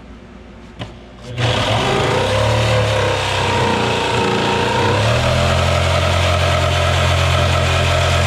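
A power saw starts about a second and a half in and runs steadily, cutting into wood; its motor pitch wavers for a few seconds, then holds steady under load.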